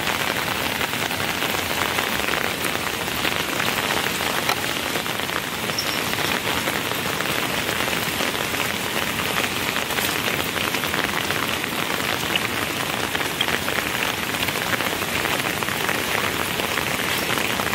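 Steady rain falling: an even hiss of countless small drop impacts, with no let-up.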